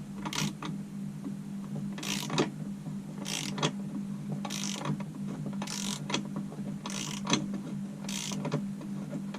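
Ratchet wrench worked in short strokes, about one a second, each a brief rasping click-run, over a steady low hum.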